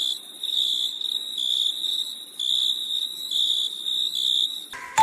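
Crickets chirping: a high, shrill trill broken into short repeated bursts. Near the end, tinkling chime-like music comes in.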